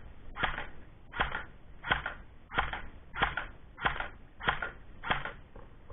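Airsoft M4 electric gun firing single shots in semi-auto: eight sharp shots at an even pace of about three every two seconds.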